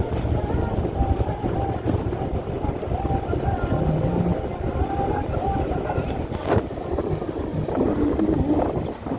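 Wind rumbling on the microphone, with a dance song playing faintly from a portable speaker underneath. A few sharp clicks come about six and a half seconds in.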